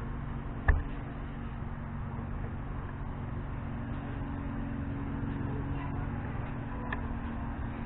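A vehicle engine running steadily, with one short knock under a second in.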